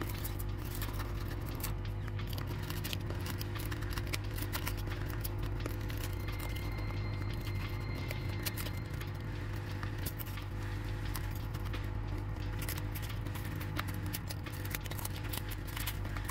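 Metal scraper chipping and scraping shattered back glass off an iPhone 13 Pro, with many small clicks and crackles of breaking glass pieces, over the steady hum of a hot air gun softening the adhesive.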